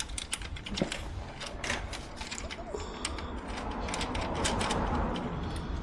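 Socket ratchet clicking in quick, irregular runs as an exhaust mounting bolt is done up, with a soft rustle of handling in the middle.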